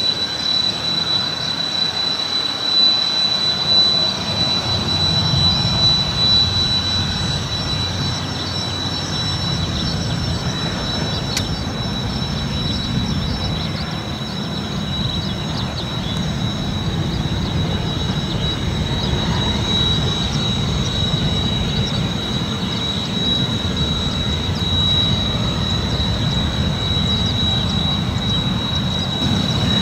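Kawasaki T-4 jet trainer's twin turbofan engines running at taxi power: a steady high-pitched whine over a low rumble.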